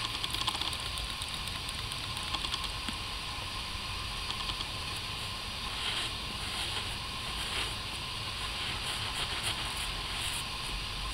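A cloth scrubbing over the face of a flat stone grave marker: short scratchy rubs at irregular intervals, over a steady background hiss.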